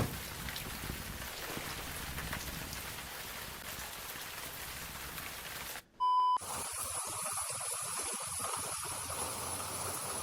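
Steady hiss of static noise. About six seconds in it cuts out for a short, pure beep, then a slightly different hiss resumes with a faint, steady high whine.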